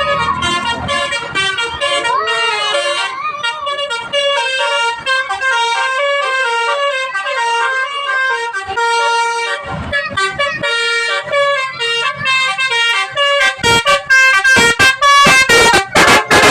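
Basuri 'telolet' multi-tone musical horn playing a tune of stepped notes, loud. From about two-thirds of the way in it switches to a run of short, quick blasts, about three a second.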